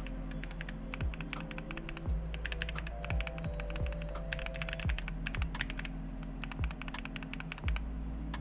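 Typing on a mechanical keyboard with Tangerine C3 linear switches in a brass-plated Tofu65 with PBT keycaps: a fast run of keystrokes that thins to scattered presses after about five seconds. Background music with a steady bass beat plays underneath.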